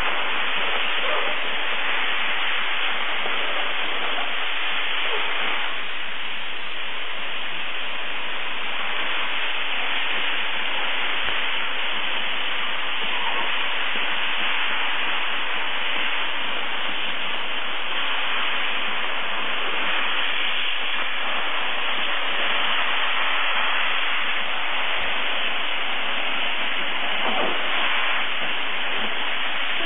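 Weidner dry-steam cleaner's lance jetting steam against a painted surface: a steady, unbroken hiss.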